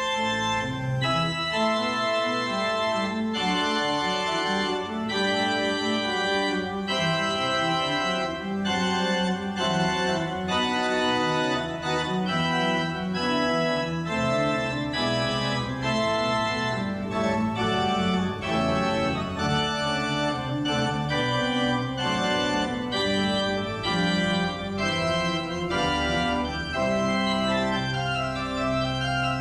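Organ playing held chords that change every second or so, with a steady bass line beneath.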